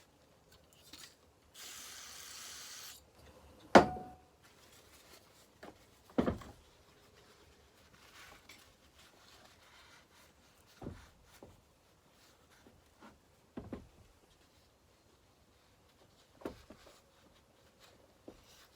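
Aerosol brake cleaner sprayed in one short hiss of just over a second, followed by a sharp knock and quiet rubbing of a rag on a chainsaw crankcase, broken by several more knocks on the bench.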